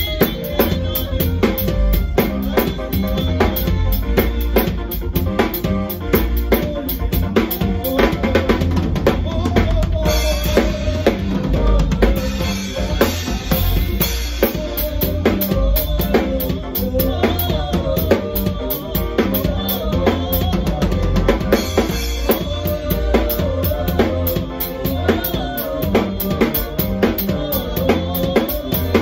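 Acoustic drum kit played with sticks in a steady, busy groove: bass drum, snare with rimshots, and hi-hat and cymbals. The cymbals are brighter for a few seconds near the middle.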